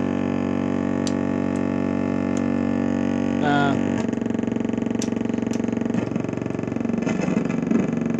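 Oscillators of a vintage R.A. Moog modular synthesizer droning together on steady pitches through its mixer. About three and a half seconds in the tone warbles briefly, and from then on it becomes a fast, rough pulsing buzz.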